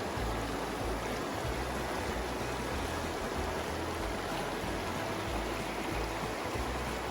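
Mountain creek flowing steadily, a constant rushing wash of water, with an irregular low rumble underneath.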